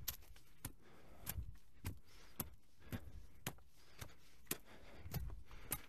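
Footsteps of hikers on a dirt trail strewn with dry leaves, about two steps a second, each a short sharp crunch.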